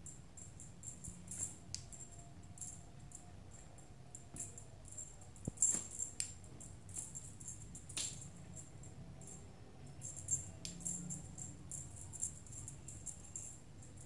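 Small jingle bells being shaken for kittens, jingling in quick irregular bursts, with a few sharper clicks in between.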